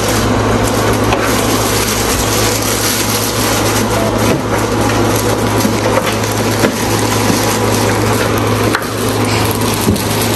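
Cardboard and plastic packaging rustling and crunching as a new blender's parts are unpacked from the box, over a steady low hum.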